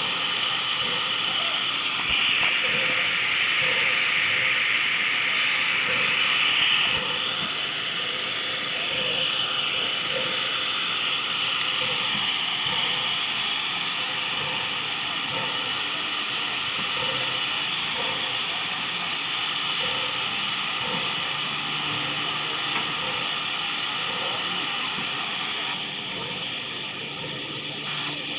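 Nickel Plate Road 765 steam locomotive hissing steam steadily. A louder blast of hiss comes in at about two seconds and drops back at about seven seconds. Under the hiss there is a soft regular beat about once a second.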